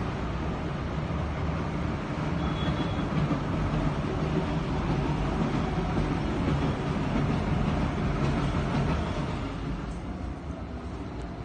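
A passing train: a steady low rumble that swells through the middle and fades toward the end.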